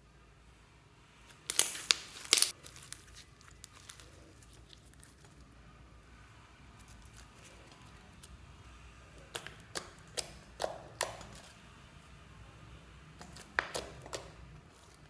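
Hands squeezing and pressing a thick slime flecked with small beads, giving clusters of sharp crackling pops: one about a second and a half in, a longer run around ten seconds in, and another near the end.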